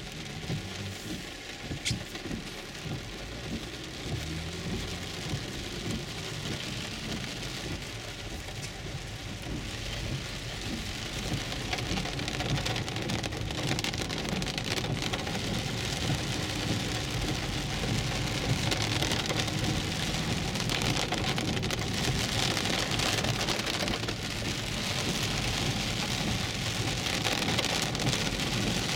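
Heavy rain falling on a moving car's roof and windshield, heard from inside the cabin of a 2011 Infiniti EX35, over a low rumble of tyres on the wet road. The noise grows louder from about ten seconds in.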